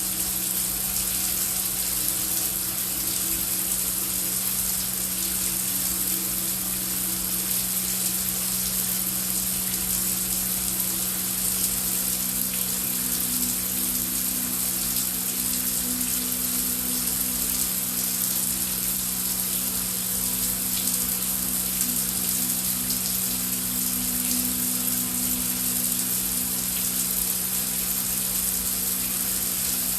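Heavy rain falling as a steady, even hiss, with a low sustained ambient drone underneath whose tones shift about twelve seconds in.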